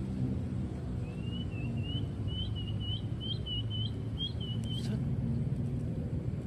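A steady low engine rumble, like a motor vehicle running nearby. Over it, a bird gives a quick series of about a dozen high chirps, starting about a second in and stopping near five seconds. One sharp click comes just before the chirps stop.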